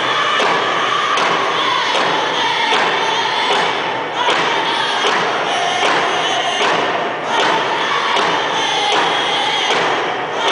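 Powwow hand-drum song: several men singing together in high voices over a steady, even beat on frame hand drums, the melody stepping downward in places.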